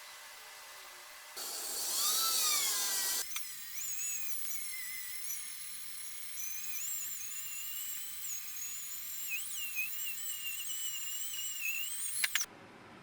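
Small high-speed power tool running: a high whine that wavers in pitch as it is loaded against the work, then cuts off suddenly near the end.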